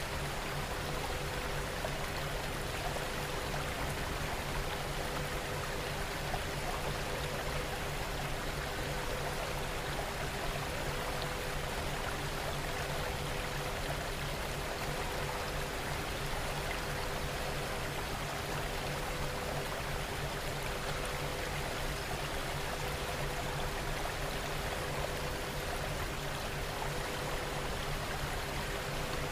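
Steady rain noise, the masking track of a subliminal audio, with a few faint steady low tones running under it.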